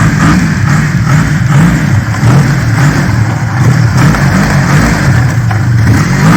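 Yamaha Phazer snowmobile engine running under way, its revs rising and falling a little, pulling cleanly with no misfiring: the throttle-override (TORS) microswitch fault is cured.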